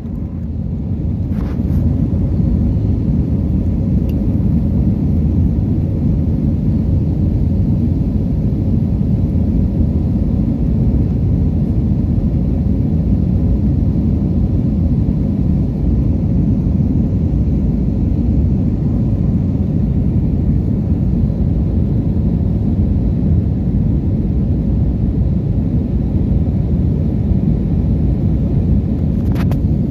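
Steady low rumble of an Airbus A321's engines and rushing airflow heard inside the passenger cabin as the airliner climbs out above the clouds.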